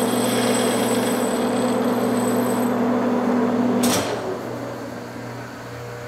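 Monarch engine lathe running with a steady whine while a boring bar takes a light hand-fed cleanup cut in a steel part. The thin high whine ends partway through. About four seconds in there is a sharp clunk as the spindle is stopped, and the running sound dies away to a low hum.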